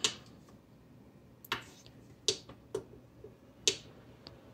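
About six sharp, irregularly spaced clicks and taps while a hot-air rework gun is handled and brought over a circuit board to desolder a surface-mount LED.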